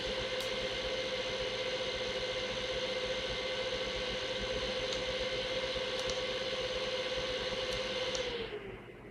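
Radeon HD 7870 graphics card fan running with a steady whirring hum and hiss, the vibrating sound the owner is showing as a fault. Near the end it spins down, its pitch sliding lower as the noise fades.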